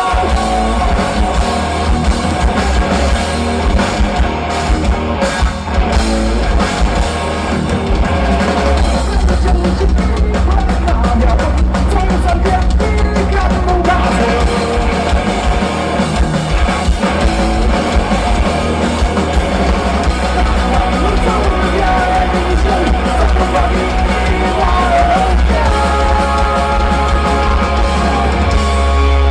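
Punk rock band playing live, loud and without a break: drum kit, electric guitars and heavy bass.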